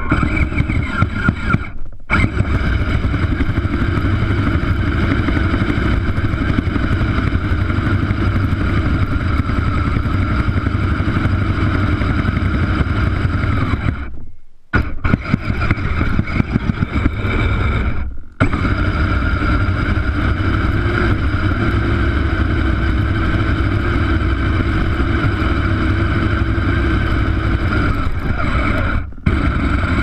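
Engine of a small snow-plowing vehicle running steadily as it pushes its plow blade through snow, breaking off briefly a few times.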